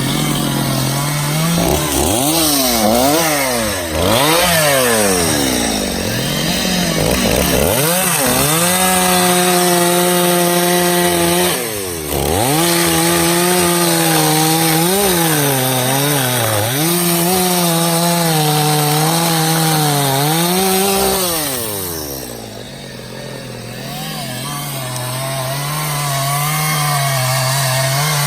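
Stihl two-stroke chainsaw cutting black locust logs: the engine revs up and down, holds at high revs with its pitch sagging and recovering under the load of the cut, then drops back to a steady idle a little past twenty seconds in.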